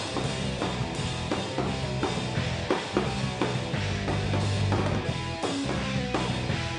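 Emo pop-punk band playing an instrumental passage with no vocals: electric guitar, bass guitar and a drum kit keeping a steady beat.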